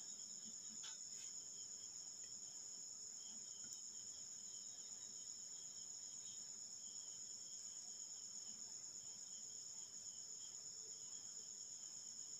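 Faint, steady high-pitched insect trilling that carries on unbroken.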